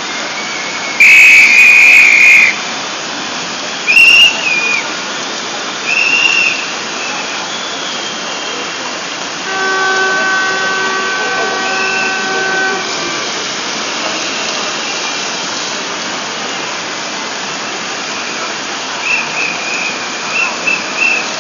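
Marching protest crowd blowing whistles: a long shrill whistle blast about a second in, shorter blasts around four and six seconds, and quick repeated chirps near the end. In the middle a horn sounds one steady note for about three seconds, over steady crowd noise.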